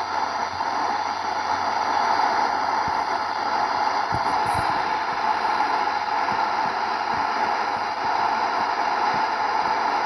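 CB radio receiver on FM with the squelch open and no station coming through, giving a steady hiss of static. A few faint crackles come through about four seconds in.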